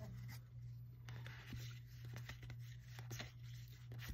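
Faint rustling and clicking of Magic: The Gathering cards sliding against each other as a pack is fanned through by hand, over a steady low hum.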